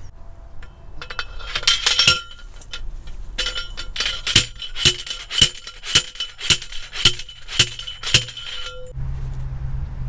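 Steel fence post being pounded into the ground with a manual post driver: sharp metal-on-metal clanks that ring, a few at first, then a steady run of about ten strikes, roughly two a second.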